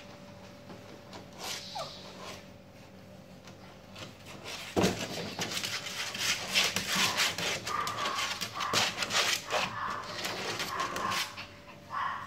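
Shih Tzu puppies whining and yipping, with scuffling and clicking as they move about a plastic playpen, starting about five seconds in after a quiet stretch.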